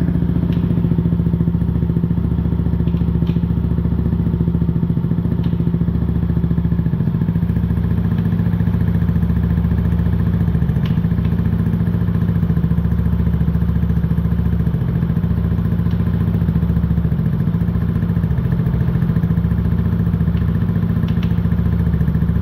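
Yamaha Cygnus X scooter's 125 cc single-cylinder four-stroke engine idling steadily, with a few sharp clicks at irregular moments. This is the strange knocking noise from a scooter at about 180,000 km, which the owner wonders may come from a muffler about to break or from the transmission.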